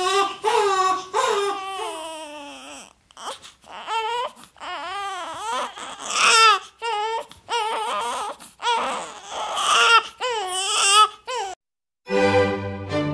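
A man crying in exaggerated, high-pitched wailing sobs, long wavering cries broken by short catches of breath. Just before the end the crying stops short and music starts.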